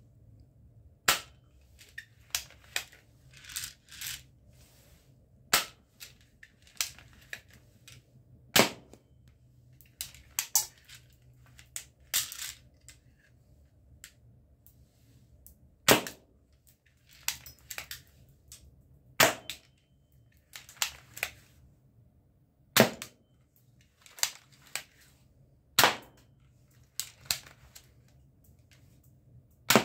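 Plastic spring-powered ball-bullet toy pistol being cocked and fired: sharp snaps about every three seconds, with quieter plastic clicks of the slide being worked between them.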